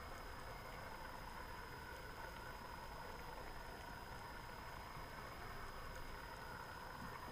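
Steady underwater background noise picked up through the camera's housing: an even hiss with a faint steady hum and a thin high whine, unchanging throughout.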